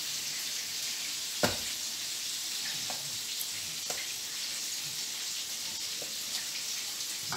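Steady sizzle of hot oil frying. A sharp knock comes about a second and a half in, with a few light clicks of a knife slicing a potato into a bowl.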